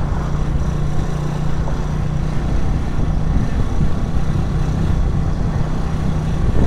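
Motorcycle engine running steadily at low speed while riding slowly through street traffic, with road and wind noise on top.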